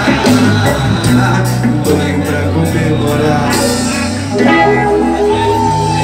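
Live reggae band playing: electric guitars, bass line and drum kit, with some singing, heard from among the audience.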